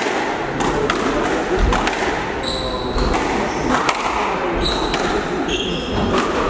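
Squash rally: the ball smacking off rackets and the court walls roughly once a second, with short high squeaks of court shoes on the wooden floor a few times.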